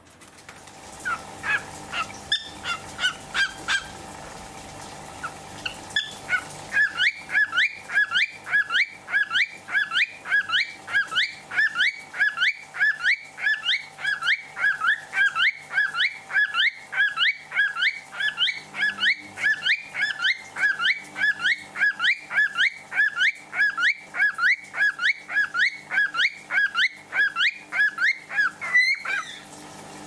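A cockatiel calling over and over in short, sharp chirps: a few scattered ones at first, then, after a short pause, a long fast run of about three calls a second that stops just before the end.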